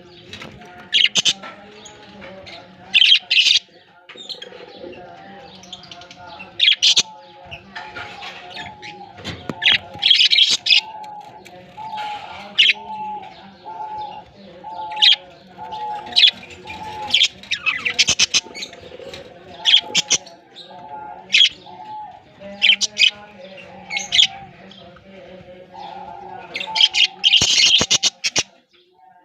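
Budgies chirping in short, sharp bursts at irregular intervals, with a quick cluster of chirps near the end.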